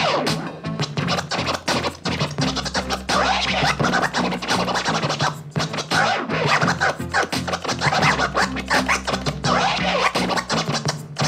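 Turntable scratching on a Numark PT01 Scratch portable turntable: rapid back-and-forth scratches, chopped on and off, over a hip hop beat.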